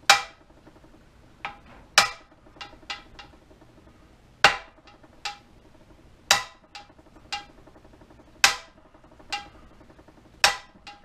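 Hammer blows on an '07 Ford F-150 driveshaft yoke: six sharp strikes about two seconds apart with lighter taps between, each ringing briefly. The tapping is meant to free a newly installed U-joint that is still binding tight.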